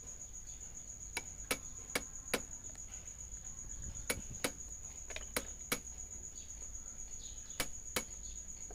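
Pliers clicking and tapping on a new brass impeller fitted to a domestic water pump's shaft in its housing: about a dozen sharp metal clicks, several in quick pairs, over a steady high-pitched whine.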